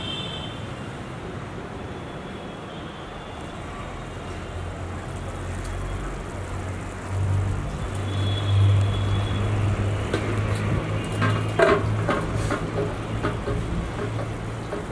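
Low engine rumble of a passing heavy vehicle, building up about four seconds in and staying loud, with a few sharp clicks near the end.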